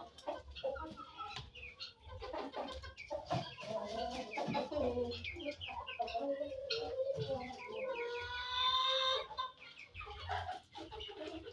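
Chickens clucking, with many short overlapping calls and one longer drawn-out call about two-thirds of the way in.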